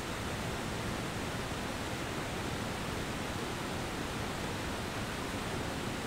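River rapids and small falls pouring over rock ledges: a steady rush of whitewater.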